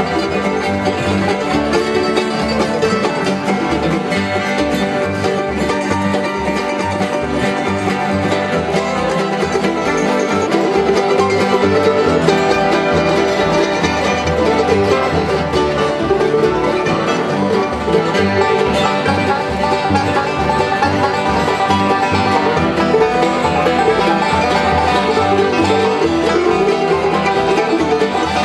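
Acoustic bluegrass jam, instrumental: banjos and acoustic guitars picking a tune together, with steady continuous playing.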